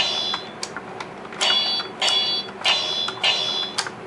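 Electronic sword-clash sound effects from the Jakks Pacific Prince Caspian Deluxe Castle playset's dueling-disc gimmick, set off by turning its dial: a string of about six ringing metallic clangs.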